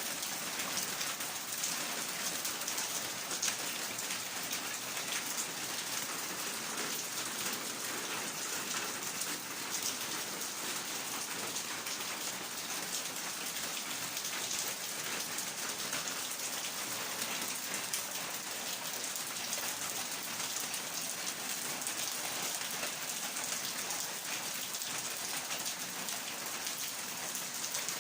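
Steady rain, an even hiss of many small drops that does not let up.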